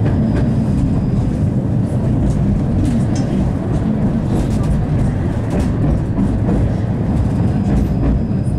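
71-931M "Vityaz-Moscow" low-floor tram running along the track, heard from on board: a steady low rumble of wheels on rail with scattered light clicks.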